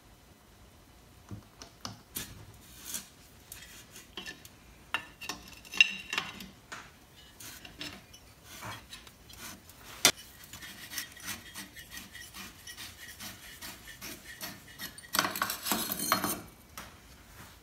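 Metal clicking and scraping as a hook spanner works the stiff, finned exhaust nut loose in a 1961 Norton Manxman 650's cylinder head, with one sharp click about ten seconds in. Near the end comes a longer rasping scrape as the nut comes off its threads.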